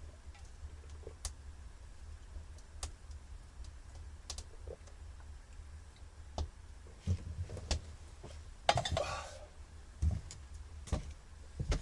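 Scattered sharp clicks and light knocks over a low steady rumble, with a brief rustling burst about nine seconds in.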